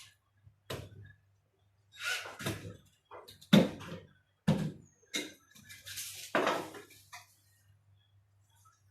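Irregular knocks and clunks of hard objects being handled, about eight over several seconds with short ringing tails, the sharpest about halfway through, over a faint steady low hum.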